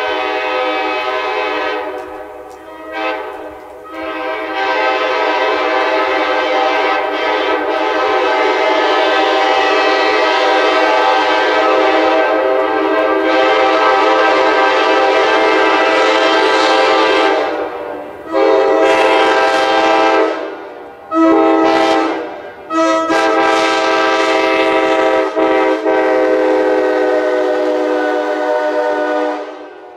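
Nathan K5LA five-chime train horn sounding its chord in several long blasts with short breaks, the longest running about thirteen seconds.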